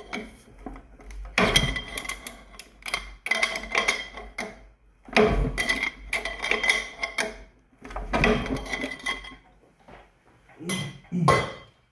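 Metal wrench clinking and clanking against the brass valve caps of a pressure washer pump as they are worked loose, in several separate bouts of sharp metallic clicks with a short ring.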